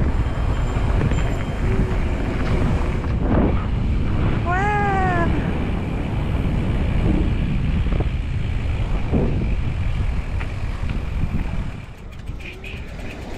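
Wind rushing over the action camera's microphone as the e-mountain bike rides along, a steady low noise that drops off near the end as the ride slows. About a third of the way in comes one short call that rises and falls in pitch.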